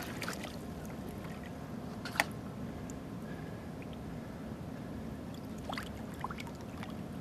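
Steady low hum aboard a fishing boat, with one sharp click or knock about two seconds in and a few faint ticks.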